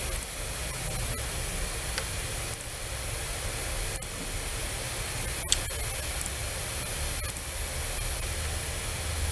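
Steady background hiss of the recording, with several faint computer mouse clicks spread through it.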